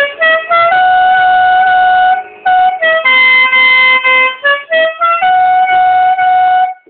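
Five-trumpet compressor-fed musical air horns sounding a loud tune: runs of quick short notes leading into long held notes, about three times over, then stopping abruptly.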